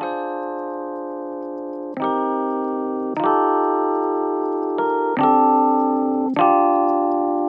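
Background music: soft keyboard chords, each struck and held, fading slowly, with a new chord about every one to two seconds.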